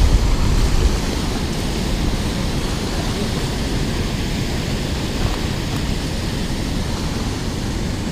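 Steady rush of water pouring over a low concrete dam spillway, with a heavier low rumble in the first second.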